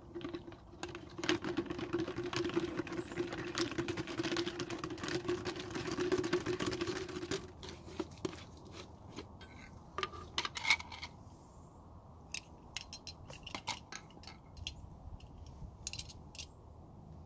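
A wheel bearing and spline nut rattling and clicking inside a covered container of parts cleaner as it is swirled, with a steady hum alongside; both stop about seven seconds in, leaving scattered light clicks and knocks.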